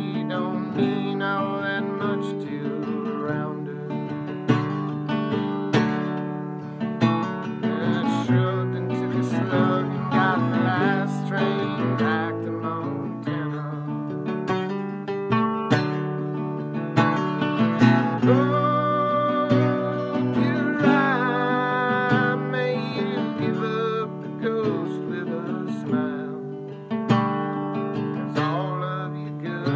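Acoustic guitar strummed through a song, with a man singing along to it.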